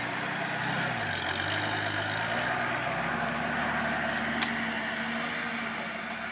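Lifted 4x4 off-roader's engine pulling at low revs as it crawls away over grass. The revs dip and rise briefly about a second in, then hold steady. There is one sharp click near the middle.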